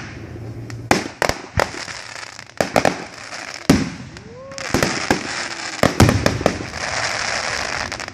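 Aerial fireworks bursting overhead: a series of sharp bangs, several close together, with a dense steady hiss filling the second half.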